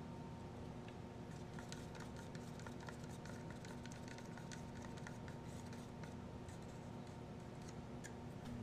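Faint, irregular light clicks and small scrapes of a mixing stick and plastic cup as two-part casting resin is worked and poured into a mold, starting about a second in and stopping just before the end, over a steady low hum.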